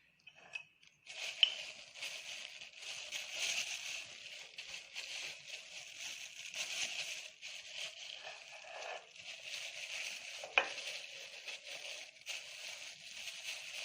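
Tomato paste, harissa and turmeric sizzling in olive oil while being stirred with a spoon: the sauce base frying before water is added. There is a sharp clink of the spoon on the pan about a second in and another about ten and a half seconds in.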